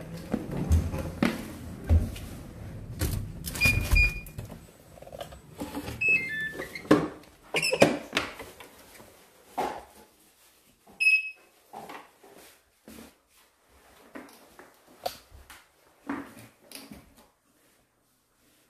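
Knocks and clatter of a door and gear being handled in a small room, with short electronic beeps: a quick falling run of tones about six seconds in and a single beep about eleven seconds in.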